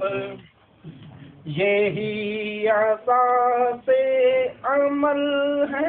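A single unaccompanied voice singing an Urdu naat, a devotional song praising the Prophet, in long held notes. The voice stops just after the start and comes back about a second and a half in.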